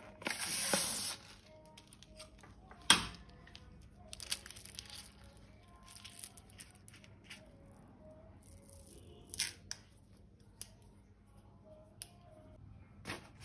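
Thin plastic being torn and cut: a short tearing hiss in the first second, a sharp snip about three seconds in, then scattered small crinkles and ticks. Soft background music plays faintly underneath.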